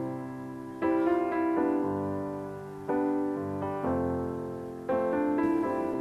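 Solo piano background music: slow chords struck about once a second, each left to ring and fade before the next.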